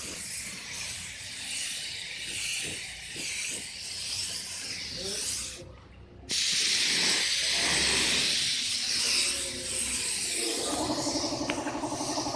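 Compressed air hissing from an air spray gun as it is test-sprayed after being found clogged. The hiss cuts out briefly about halfway, then comes back as a louder, steady hiss for about four seconds. Near the end a motor starts running with a fast, even pulse.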